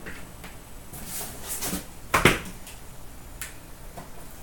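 Hands handling trading cards and their packs: a soft rustle, then a single sharp tap about two seconds in, with a few faint ticks afterwards.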